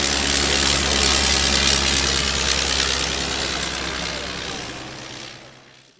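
1912 Blackburn Monoplane's Gnome rotary engine running steadily as the aircraft flies past. The sound fades away over the last two seconds.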